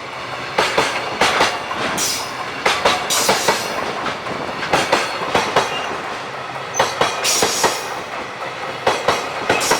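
Freight train hauled by an EF66 electric locomotive rolling past, its wheels clattering over the rail joints in quick clusters of clicks about every second or two over a steady rumble of running wheels.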